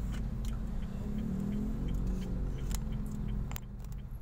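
Low steady hum of a Honda Mobilio's four-cylinder engine idling, heard from inside the cabin while the car stands in traffic. A few soft, irregular clicks come in the second half.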